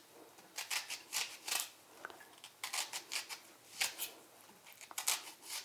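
Kitchen knife slicing through a yellow onion: a series of short, crisp cuts at an uneven pace, often two or three close together.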